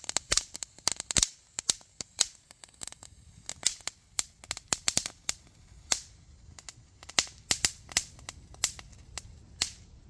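Chinared Flashback Category 1 firework burning and letting off a rapid, irregular string of sharp cracks. The cracks come thick at first, grow sparser, and stop near the end as the item burns out.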